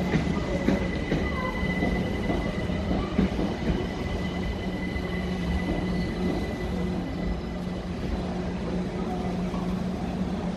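London Overground electric multiple unit standing at the platform, its onboard equipment giving a steady hum, with a thin high whine that fades out about halfway through.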